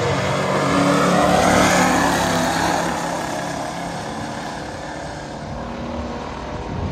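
Two pure-stock V8 muscle cars accelerating at full throttle down a drag strip, their engines revving up through the gears. Loudest a second or two in, then fading as they pull away into the distance.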